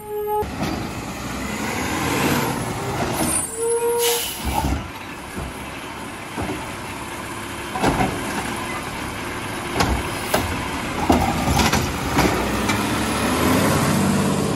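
Peterbilt 320 automated side-loader garbage truck running and stopping, its air brakes squealing and hissing about four seconds in. From about eight seconds the hydraulic arm lifts and dumps a trash cart, with a series of sharp bangs as the cart knocks against the hopper.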